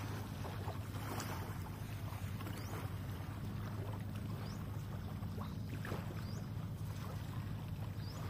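A steady low motor-like hum, with faint short high chirps every second or two.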